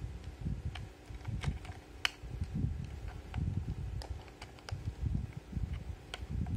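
Handling noise from the plastic case of an Aneng M118A multimeter: irregular light clicks and rubbing as fingers work the black flap and battery cover on its back.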